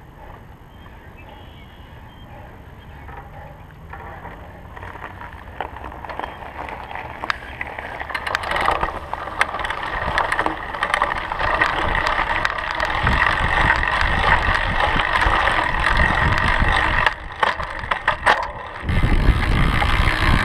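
Wide knobby fat-bike tyres rolling and crunching over gravel, the tyre noise growing louder as the bike picks up speed and then humming on pavement. A deep rumble of wind on the microphone comes in near the end.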